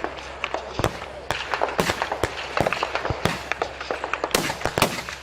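Service rifles firing along a firing line: many sharp, irregular shots, a few loud close cracks among fainter ones from farther down the line.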